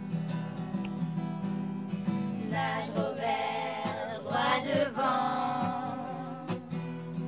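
Acoustic guitar strumming, joined by voices singing from about two and a half seconds in until about five seconds in.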